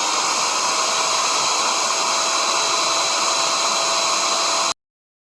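A high-speed electric power-tool motor running steadily at full speed, a dense hiss with a thin high whine. It stops abruptly near the end.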